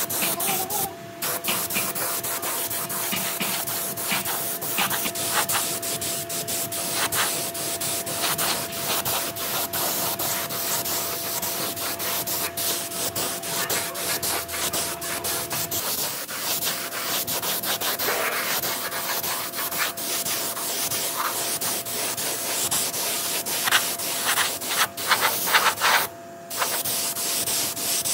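Compressed-air spray gun hissing as it sprays paint onto a sheet-metal fuel tank, in many short irregular passes, with a faint steady hum underneath that stops about halfway through.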